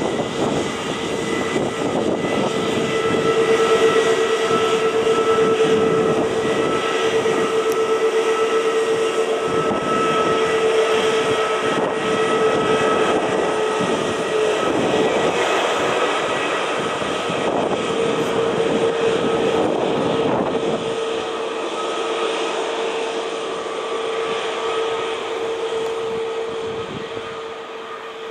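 Jet engines of an Airbus A321neo running loud and steady, a droning tone with a higher whine over a rushing noise, easing off a little near the end.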